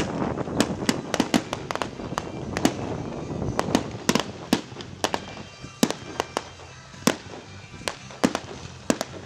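Aerial fireworks going off in a rapid, irregular string of sharp bangs and crackles that thins out toward the end, with music playing underneath.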